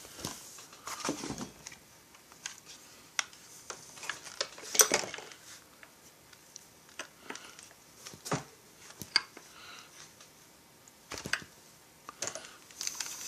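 Irregular clicks and knocks of a plastic chainsaw handle and fuel tank being handled around the fuel cap, the loudest about five seconds in, during a tank pressure test that the tank has just failed.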